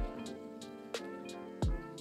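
Background music: held chords over deep drum beats that drop quickly in pitch, a few to a second.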